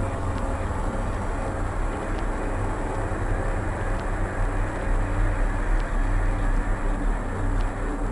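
Dense, steady noise drone from a heavily processed experimental ambient track, with a strong low rumble underneath and faint clicks every second or two.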